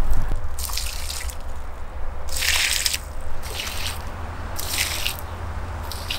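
Water splashing as it is scooped from a bucket with a plastic dipper and poured onto garden soil, in about five short splashes, the loudest about two and a half seconds in. A steady low rumble runs underneath.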